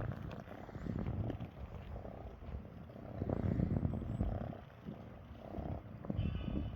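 Domestic cat purring close up, a low rumble that swells and eases with each breath.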